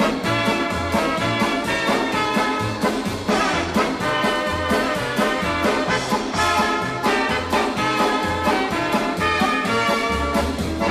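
Swing-style instrumental background music with brass over a steady bass line.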